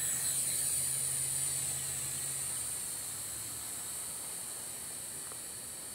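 Blade mQX micro quadcopter's four motors and propellers giving a high, steady whine just after lift-off, growing slowly fainter as it climbs away.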